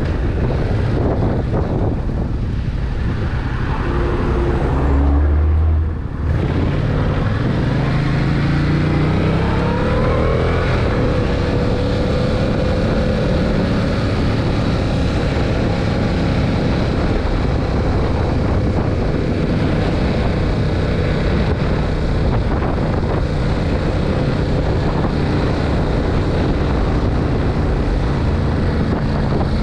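Yamaha MT-07 (2021) motorcycle's 689 cc parallel-twin engine on its stock exhaust, heard while riding. The engine note dips sharply for a moment about six seconds in, as at a gear change. It then climbs in pitch for several seconds as the bike accelerates and settles into a steady cruise.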